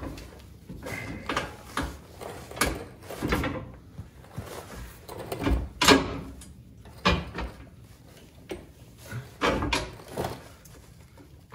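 Steel skid plates and bolts knocking and clunking irregularly against a truck frame as they are held up and fitted.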